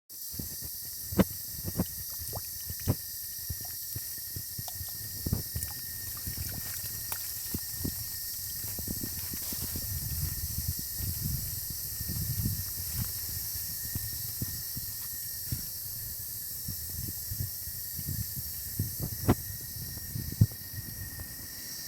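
Outdoor ambience: a steady high-pitched hiss with a faint steady tone, over a low rumble, broken by irregular knocks and thumps, a few of them loud.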